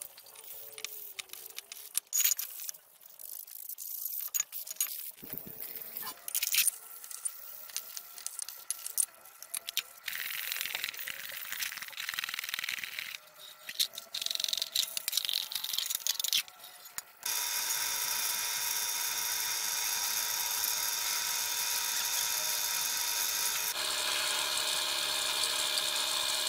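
Sandpaper and a scrub brush rubbing on cast-metal drill press parts, in irregular scratchy strokes. About 17 s in, a steady whining drone with several tones sets in and changes pitch near the end.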